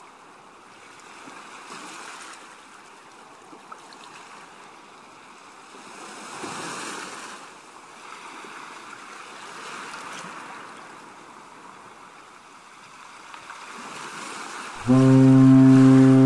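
Sea waves washing, swelling and easing every few seconds. Near the end a ship's horn starts, one deep steady blast much louder than the waves.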